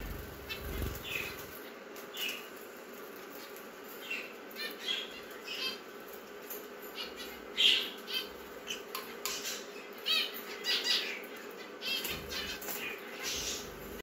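Pet budgerigars and lovebirds chirping and squawking in short, scattered calls over a steady low hum.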